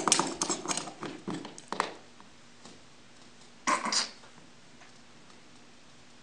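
Pliers clicking and scraping against a metal baseboard doorstop as it is being unscrewed. A quick run of small metallic clicks and rattles fills the first two seconds, and a short rattle comes just before four seconds in.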